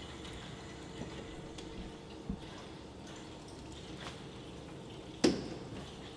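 Faint steady hiss of water running into the Eco King boiler's heating system through its fill valve while the system is being pressurised. A sharp knock comes about five seconds in.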